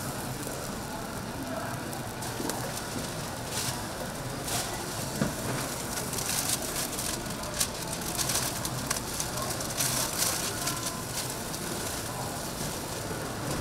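Background noise of a market stall: a steady hum of activity with scattered short clicks and clatters and faint voices.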